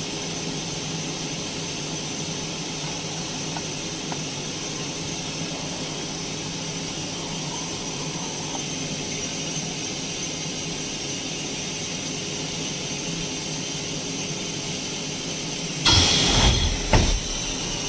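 Linear vibration plastic welding machine running with a steady hum and a few fixed tones through a fog lamp weld cycle. About sixteen seconds in there is a loud burst of noise lasting under a second, then a shorter one about a second later.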